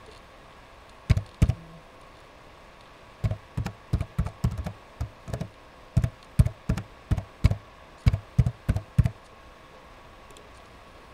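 Computer keyboard being typed on: about twenty sharp key taps at an uneven pace, in small runs, stopping about nine seconds in.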